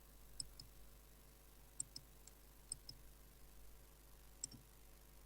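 Faint computer mouse clicks, a few quick press-and-release pairs spread across a near-silent background, as bones are placed one by one in a bone chain.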